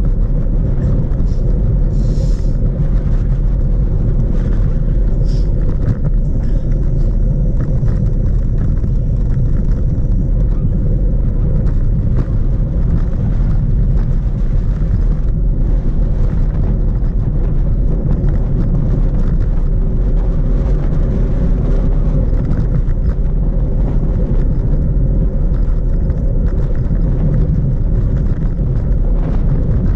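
Wind buffeting the microphone of a bicycle-mounted camera on a fast downhill ride: a loud, steady low rumble.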